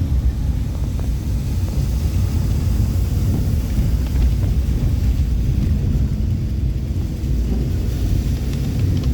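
Steady low rumble of a waterfall, with wind buffeting the microphone.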